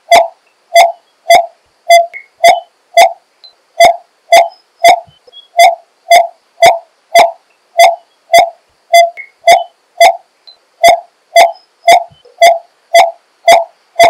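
Coppersmith barbet calling: a steady series of single 'tuk' notes, about two a second.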